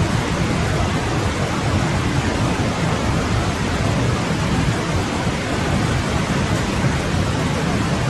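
Winter forest stream flowing: a steady rush of water with a low rumble beneath it.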